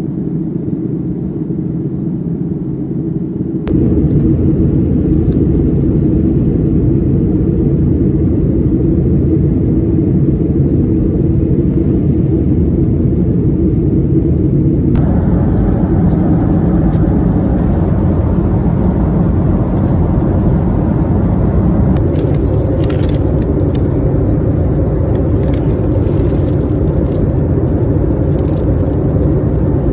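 Airliner cabin noise in flight: the steady low rumble of jet engines and rushing air. It shifts abruptly twice. Near the end, light crinkling of plastic wrapping is added.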